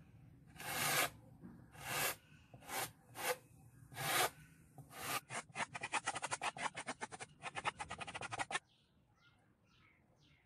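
A flat scraper dragged through black paint on a canvas board. First come six or seven separate rubbing strokes, then a fast back-and-forth scrubbing of about ten strokes a second for three seconds or so, which stops abruptly.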